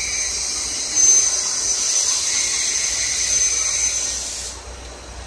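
The Twilight Express train's brakes, making a loud, steady high-pitched hiss with a thin whine on top as the train rolls slowly into the platform. It cuts off about four and a half seconds in.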